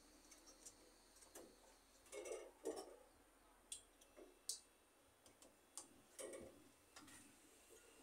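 Near silence broken by scattered light clicks and taps as hands handle wiring and copper tubing at a refrigerator compressor.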